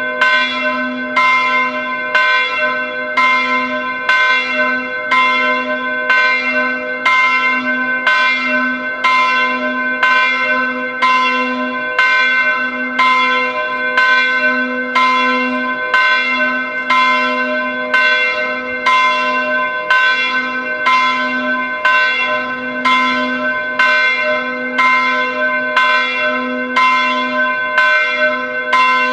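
Church bells ringing steadily, strike after strike at an even pace with no pause, each stroke's ringing tone overlapping the next.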